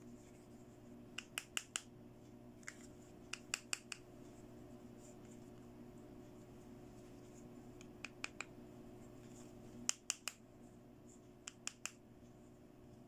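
Sharp clicks and taps on a small hard-plastic toy perfume bottle, coming in quick runs of three or four, five runs in all, over a faint steady hum.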